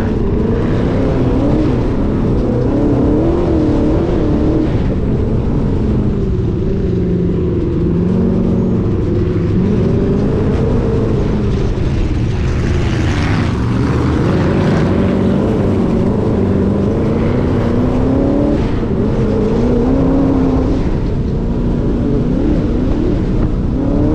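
Dune buggy (sand rail) engine running under way, its pitch rising and falling again and again as the revs change over the dunes, over a steady rush of noise.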